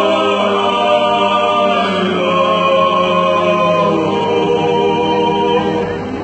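Small male vocal ensemble singing a traditional Georgian song in several-part harmony, the voices holding long notes together.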